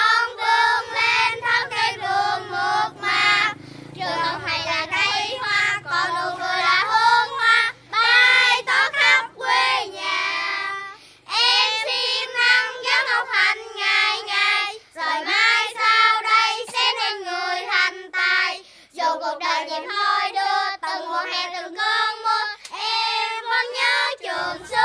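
A child singing a melody in a high voice, in phrases with short breaks between them.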